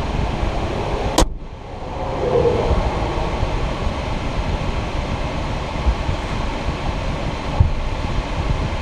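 Steady road and tyre rumble inside a moving Kia EV6's cabin, with a sharp click about a second in.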